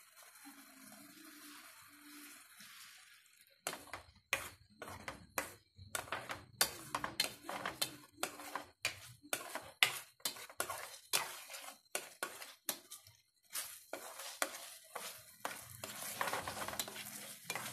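A plastic spatula stirring chicken livers in a frying pan of adobo sauce thickened with cornstarch. After a few quieter seconds, quick scraping and knocking strokes against the pan start, about two or three a second.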